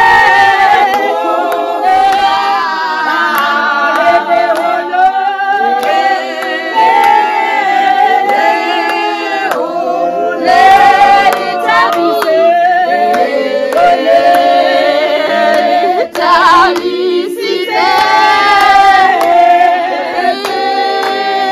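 A group of women singing a church song together without instruments, clapping along.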